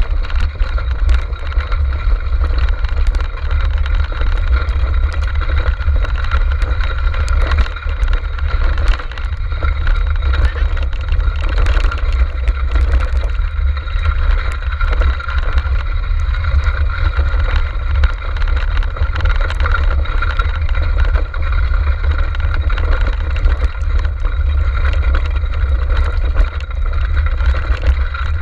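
Steady low rumble of a six-dog racing cart rolling fast over a rough dirt forest trail, with wind on the microphone and scattered light clicks and rattles from the cart.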